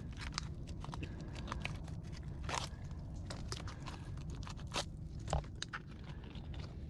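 Gloved hand digging in mud and oyster shell among mangrove roots to pull out ribbed mussels: irregular small crunches, clicks and scrapes of shell, with a few sharper ones about two and a half and five seconds in.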